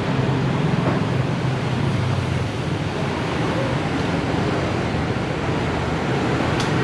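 Steady rumbling background noise with no distinct source, with one brief sharp click near the end.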